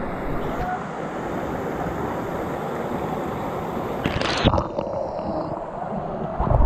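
Steady rush of waterfall water, with a brief louder noise about four seconds in.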